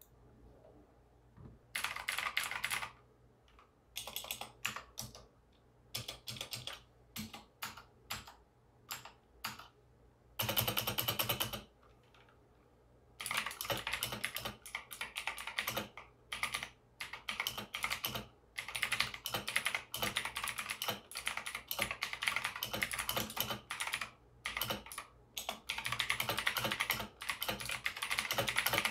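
Typing on an Aukey KM-G12 full-size mechanical keyboard: sharp, rapid keystroke clicks. It starts in short bursts with gaps, has one loud flurry about ten seconds in and a brief pause, then goes over to steady fast typing.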